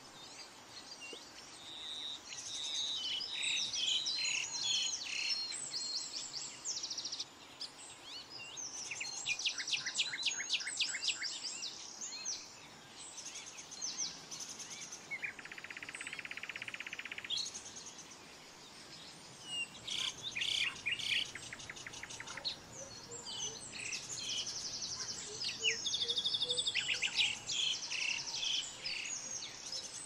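Several small songbirds chirping and singing in overlapping high, twittering phrases. About halfway through, a fast buzzy trill lasts about two seconds.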